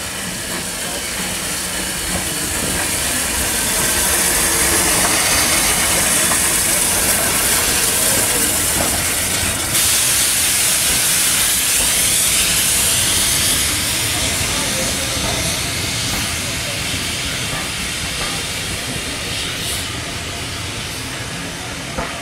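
Steam locomotive pulling a train out past the platform, with a steady hiss of escaping steam that builds as the engine draws near, is loudest as it passes, and eases as the coaches roll by.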